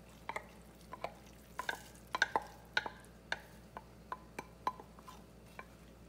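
A run of irregular light clinks and knocks as cooked spinach is scraped out of a glass bowl into a stainless steel frying pan, the glass and metal ringing briefly with each contact. They come thickest two to three seconds in.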